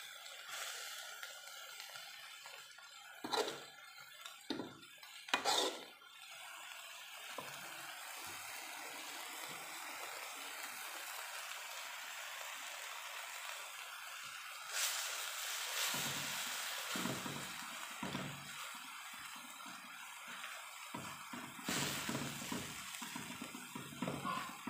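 Fern shoots sizzling in an aluminium wok while a metal spatula stirs them, knocking and scraping against the pan a few times.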